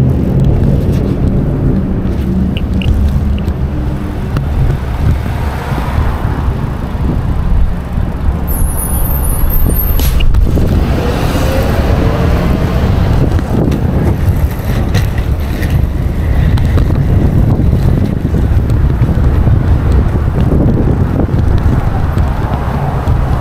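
Wind rumbling on the microphone of a handlebar-mounted action camera as a bicycle rides along, with city traffic in the background. There is a single sharp knock about ten seconds in.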